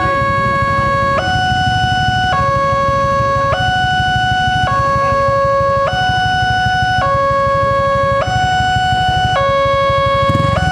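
Railway level-crossing warning alarm sounding while the barrier is down: an electronic two-tone alarm alternating between a low and a higher note, each held a little over a second. A low rumble runs underneath and grows stronger near the end.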